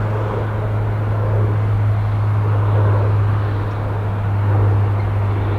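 Jet aircraft engine noise: a steady deep hum with a broad rush over it, swelling slightly.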